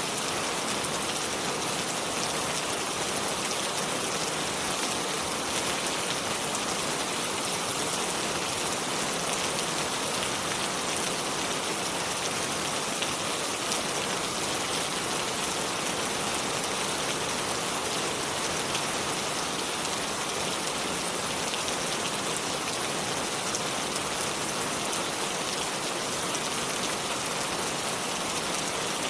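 A river flowing over stones: a steady, even rush of water with fine splashing, without a break.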